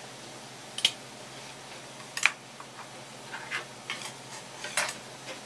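A stoneware teacup and tableware being set down on a wooden counter: a string of short, sharp knocks and clinks, loudest about one and two seconds in, over a steady hiss.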